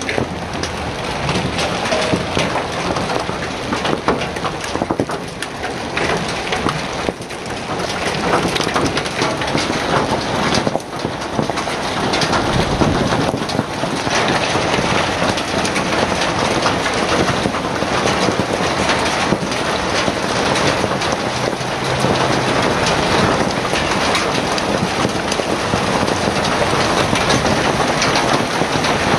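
Coin-sized hailstones pelting asphalt pavement and parked cars in a heavy hailstorm: a dense, steady clatter of countless small impacts, growing a little heavier about a third of the way through.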